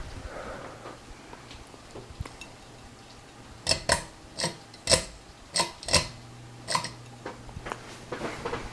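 Hunter Stratford II ceiling fan running on medium speed with a steady low motor hum. Through the middle come about seven sharp, irregular clinks with a brief ring, like metal or glass tapping.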